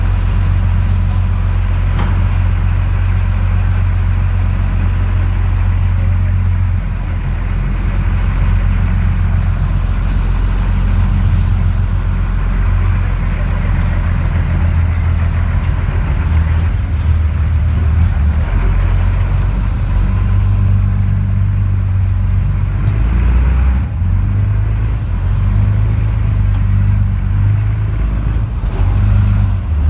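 A river ferry's engine running steadily under way, heard from on board as a loud low drone.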